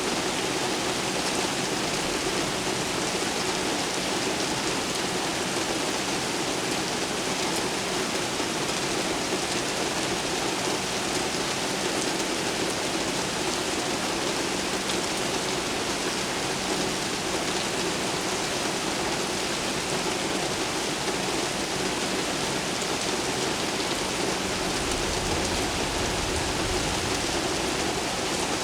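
Steady heavy rain falling and splashing on hard surfaces, an even hiss. Near the end a low rumble of distant thunder comes in under the rain.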